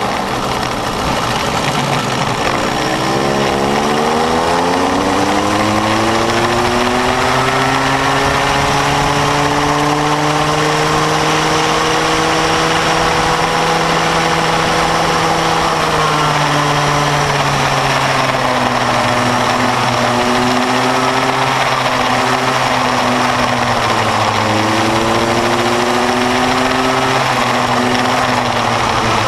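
Bambino go-kart's small engine heard from onboard at full throttle. Its pitch climbs steadily over several seconds, holds high for a while, then drops about halfway through as it eases off, and climbs again twice toward the end.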